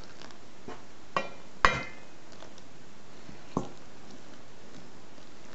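Metal spoon clinking against a stainless steel mixing bowl four times while stirring flour, the loudest clink about a second and a half in with a brief metallic ring, over a steady low hiss.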